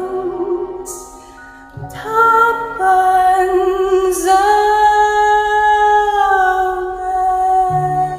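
Slow, gentle song with a woman's singing voice over soft musical accompaniment, a new phrase starting about two seconds in and one long held note in the middle.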